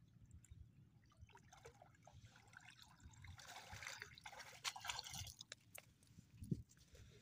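Faint splashing and dripping of shallow river water as a person wades out, with the splashing loudest around the middle, then a few soft footfalls on sand near the end.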